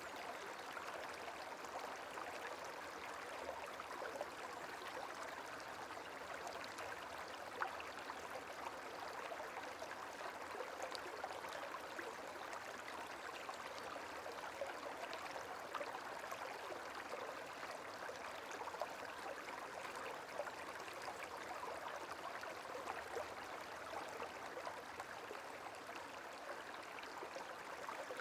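Gentle running water, a steady trickling flow with small splashes now and then.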